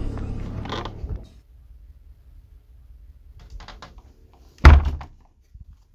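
Background music fades out within the first second. After a few faint clicks, an old wooden door bangs once with a single loud thud about two-thirds of the way in.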